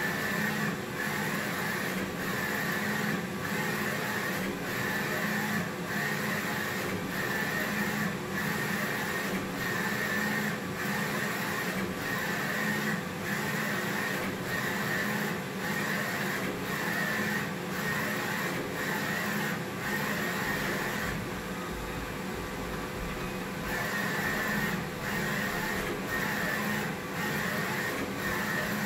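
Direct-to-garment printer printing onto a T-shirt: the print-head carriage shuttles back and forth in passes about a second long with a steady whir. About two thirds of the way through, the passes stop for about three seconds and a low rumble takes their place before the shuttling resumes.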